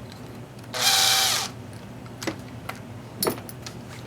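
Power drill run briefly, its motor whine holding steady for under a second and then falling as it spins down, followed by a few light clicks of handling.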